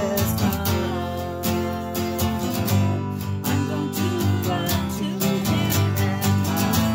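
Yamaha acoustic guitar strummed steadily, with a man singing along.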